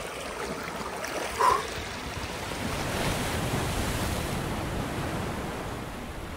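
Sea waves breaking and washing over a rocky shoreline, a steady rushing that swells around the middle, with some wind on the microphone. A brief short tone sounds about a second and a half in.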